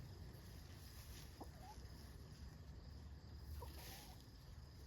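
Chickens clucking softly while foraging: two short, faint calls, one about a second and a half in and one about three and a half seconds in.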